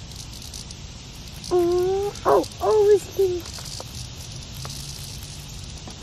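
A child's short wordless vocal sounds, rising and wavering, for about two seconds starting a second and a half in, over a steady faint outdoor hiss with light crackling.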